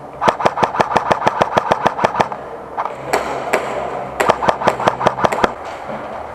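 AK-74-style airsoft electric gun (AEG) firing: a string of rapid shots at about seven a second for two seconds, two single shots, then a second, shorter string.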